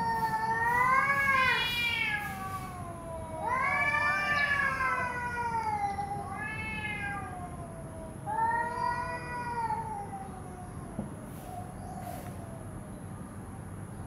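A cat meowing in long, drawn-out calls that rise and fall in pitch: four of them, the third short, fading to quiet about two-thirds of the way through.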